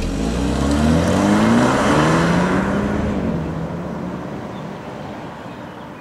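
BMW 428i Gran Coupe's 2.0-litre turbocharged four-cylinder engine pulling away and accelerating, its note rising in pitch for about two seconds, then fading as the car draws off down the road.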